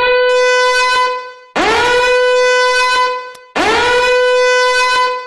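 Alarm horn sounding three long blasts about two seconds apart, each swooping up in pitch at the start and then held on one steady, buzzy tone.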